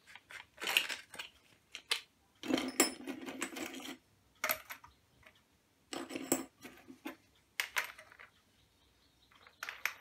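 Metal clinks and short rattles from changing the disc on an angle grinder: a cutting disc is fitted and the old disc is handled and set down. The clinks come in scattered clusters.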